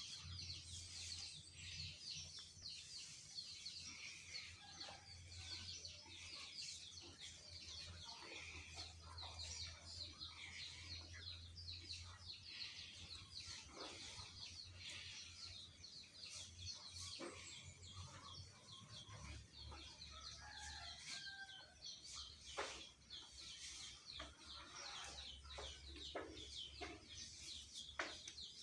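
Faint background of many small birds chirping rapidly and continuously, with chickens clucking now and then, and a few soft clicks and rustles.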